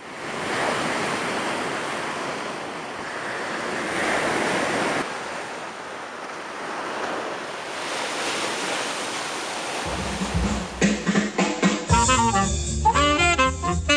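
Ocean surf breaking over rocks and washing up the beach, a steady rush of waves that swells and eases. About ten seconds in, background music comes in over it, a bass line first and a melody about two seconds later.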